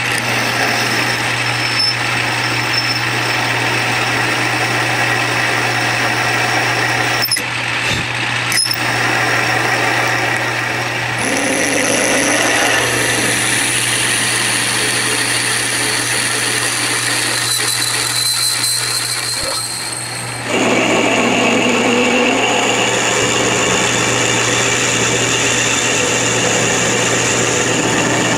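Metal lathe running with a twist drill cutting through the centre of a cylinder head casting: a steady motor hum under a high whine from the cut. The whine changes pitch a couple of times, with short breaks about eight seconds in.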